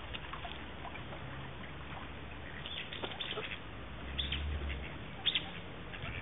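Eastern spot-billed ducks feeding at close range, a scatter of short, sharp clicks from their bills pecking and dabbling, bunched about three seconds in and again near four and five seconds. A low rumble sits under it just past the four-second mark.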